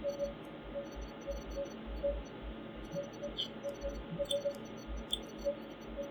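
Three computer mouse clicks, about a second apart in the second half, over the steady hum of a running desktop PC.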